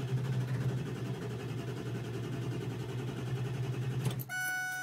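Ford diesel pickup's starter cranking the engine for about four seconds without it catching: a hard-starting diesel that won't fire after the glow plug cycle. The cranking stops and a steady electronic beep sounds briefly near the end.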